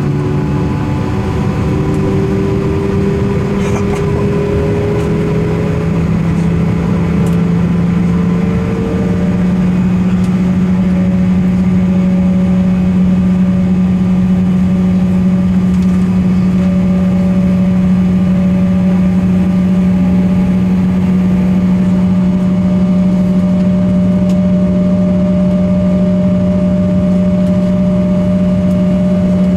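Embraer E170's turbofan engines running at low power, heard as a steady drone inside the cabin. Its pitch rises over the first several seconds and then holds steady.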